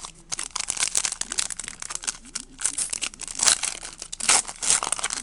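Trading cards and their plastic packaging being handled: a steady run of irregular crinkling and rustling.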